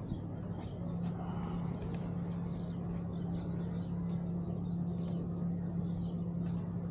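A steady low motor hum that grows a little stronger about a second in, with scattered faint high chirps of small birds.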